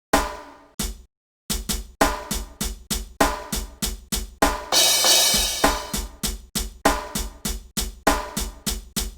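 Drum kit playing a hip-hop groove of kick drum, snare and hi-hat. It breaks off to a short silence about a second in, then starts again with a cymbal crash about five seconds in.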